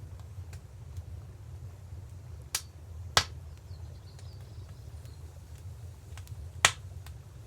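Wood fire crackling: a few faint ticks, two sharp pops near the middle and a louder one near the end, over a low steady rumble.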